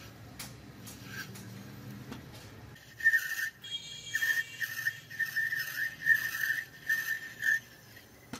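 Metal lathe turning a brass ring, running with a low hum. About three seconds in, the cutting tool starts squealing on the brass in a run of short high-pitched bursts, roughly two a second, that stop shortly before the end.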